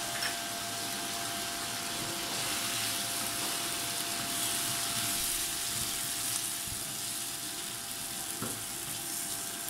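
Diced potatoes and ground spices sizzling steadily in hot oil in a nonstick frying pan while being stirred with a slotted spatula, as the spices fry until roasted.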